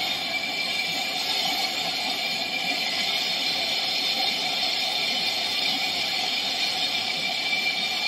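Handheld gas torch flame hissing steadily as it heats a copper refrigerant pipe joint at the refrigerator's compressor toward red heat for brazing.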